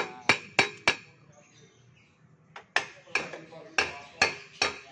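Hammer striking metal in quick repeated blows, about three a second, each with a short metallic ring. A pause of nearly two seconds falls about a second in, and then the hammering resumes.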